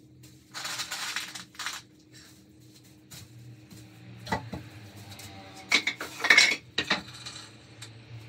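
Small metal pieces clinking and rattling as they are handled, in a few short bursts, the loudest about six seconds in. A rustle comes about a second in, and a light knock about four seconds in.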